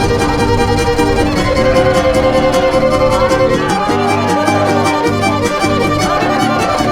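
Background music with a steady beat, held notes and a sliding melody line.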